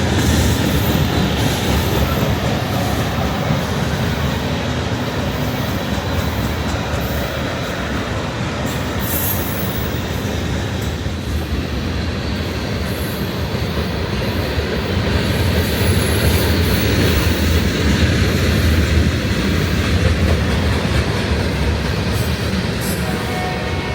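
Freight train of empty oil tank cars hauled by three GP38 diesel locomotives rolling past: a steady loud rumble of wheels and cars, with clatter over the rail joints and brief high wheel squeals now and then. It grows a little louder past the middle.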